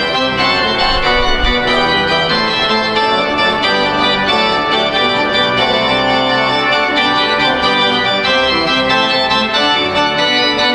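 Church pipe organ playing a piece with many notes held at once, full and steady in loudness, the chords moving from one to the next.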